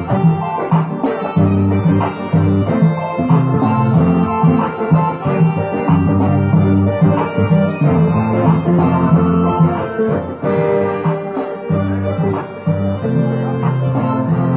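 Hassani music played live on an electric Korg keyboard and an electric guitar, over a steady beat of high percussion ticks.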